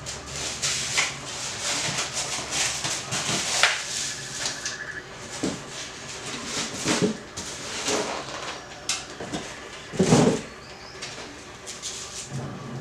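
Styrofoam packing blocks rubbing and squeaking as they are handled and pulled apart, with plastic and tissue wrapping rustling around the unpacked statue pieces. One louder handling noise about ten seconds in.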